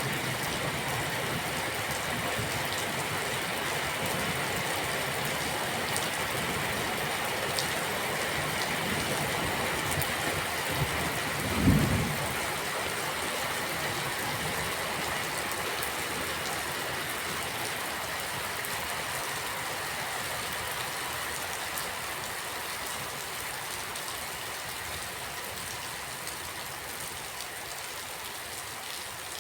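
Steady rainfall, an even hiss with a few sharp drip ticks, easing slightly in level toward the end. About twelve seconds in comes a brief low rumble, the loudest moment.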